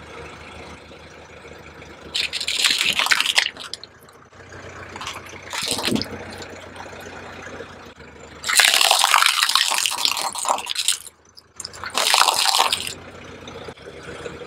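A car tyre rolling over and crushing plastic toys: four bursts of crunching and crackling plastic, the longest near the middle, with a faint steady low car-engine hum between them.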